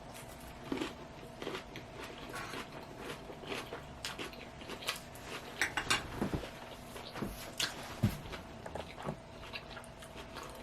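Close chewing and biting of a crunchy salad: many small, irregular crunches and mouth clicks.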